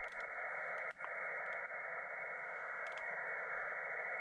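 Receiver hiss from a Xiegu X5105 HF transceiver's speaker tuned to the 40-metre band, heard as a steady, narrow-band static. It dips briefly twice in the first second, and a few faint clicks sit over it.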